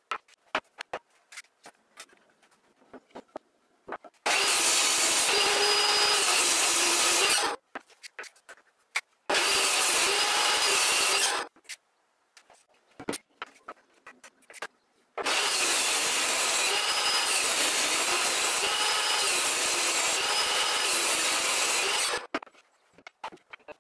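Benchtop table saw running and ripping an ash board into strips, in three spells of steady cutting noise about three, two and seven seconds long. Between the cuts, small knocks and clicks of boards being handled on the saw table.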